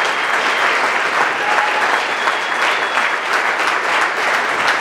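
A large audience applauding steadily, a dense patter of many hands clapping at once.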